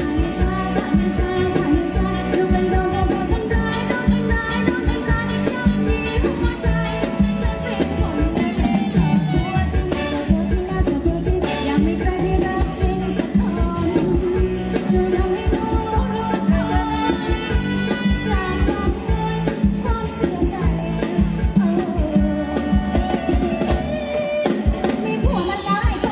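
Live band playing upbeat Thai ramwong dance music with a steady drum beat.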